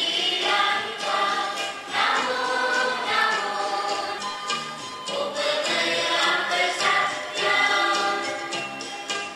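A choir singing, with long held notes.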